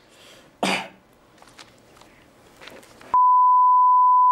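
A loud, steady electronic beep at one fixed pitch comes on about three seconds in and holds. Before it, over quiet room sound, a short throat-clearing noise comes under a second in.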